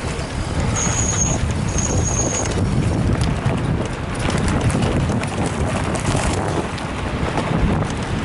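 Wind buffeting the microphone, with rumble and rattle from a mountain bike and its mounted camera riding fast over a rough forest dirt track. Two brief high whistles come about a second in.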